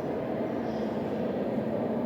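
Metro station ambience: a steady low rumble and din with no distinct event standing out.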